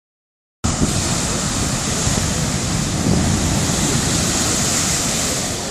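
Silence for about half a second, then suddenly loud, steady wind buffeting the microphone over heavy storm-tide surf breaking against the shore.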